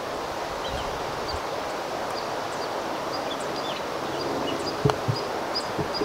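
A putter strikes a golf ball once, a single sharp click just under five seconds in. Birds chirp repeatedly over a steady hiss of wind and rustling leaves.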